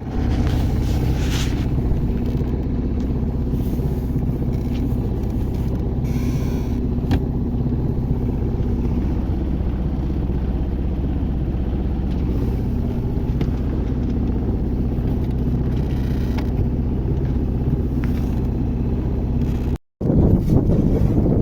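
An engine runs steadily at constant speed, a low even drone with a few faint clicks. Near the end it cuts off abruptly and louder wind noise on the microphone takes over.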